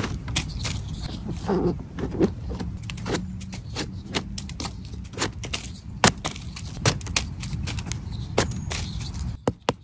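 A small knife scraping and trimming the dirty stem base of a large king bolete (Boletus edulis var. grandedulis), in irregular short scrapes and clicks over a low steady rumble. Near the end a quick run of evenly spaced taps begins.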